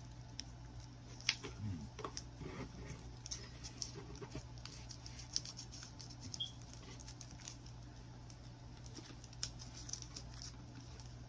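Faint crinkling and scattered clicks of snack wrappers and plastic packaging being handled, over a steady low hum.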